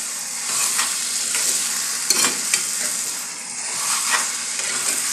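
Sausages and vegetables with ketchup sizzling as they fry, while a spoon stirs them. A few short scrapes or knocks of the spoon against the pan.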